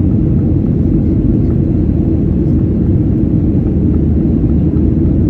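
Steady, loud low rumble of a Boeing 737 jet airliner in flight, heard inside the passenger cabin: engine and airflow noise.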